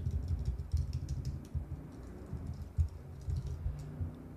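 Typing on a computer keyboard: quick, irregular keystrokes with a dull thud under each, the clicks thinning out toward the end.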